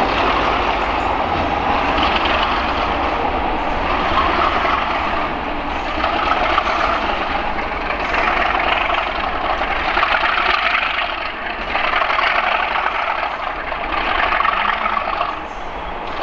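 Class 37 diesel locomotive's English Electric V12 engine working loudly and steadily, its note swelling and easing about every two seconds.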